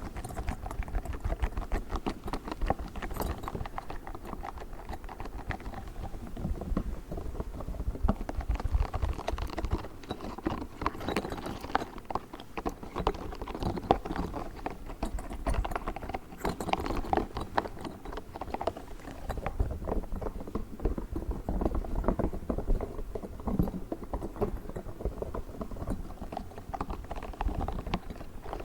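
Pink spiky rubber ball being tapped and handled by fingers: a dense, irregular run of quick taps and clicks.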